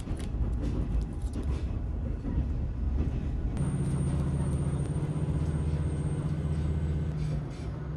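Cabin noise of a moving diesel railcar: a steady rumble of the train running, with the diesel engine's low drone coming in about three and a half seconds in and easing off near the end. Light crinkling of a cellophane cookie wrapper being handled and torn open.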